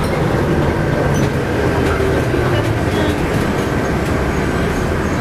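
Steady rumble of a moving passenger vehicle, heard from inside the passenger cabin.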